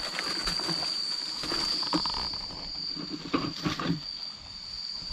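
A steady high-pitched insect chorus drones throughout, over irregular knocks and rustles, most of them clustered about three and a half seconds in.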